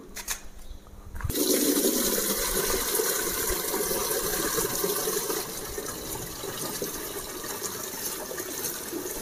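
Water poured from a plastic bucket into the top opening of a 20-litre battery knapsack sprayer's plastic tank: a steady pour of water into water, starting about a second in.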